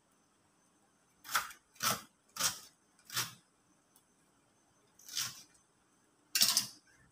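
Kitchen knife cutting through an onion onto a plastic cutting board: six separate strokes at uneven intervals, four close together in the first half and two more later.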